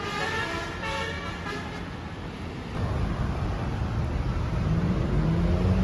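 A bus's telolet horn (a Basuri multi-trumpet air horn) plays a short tune of changing notes that stops about a second and a half in. The bus's engine and road noise follow, growing louder near the end.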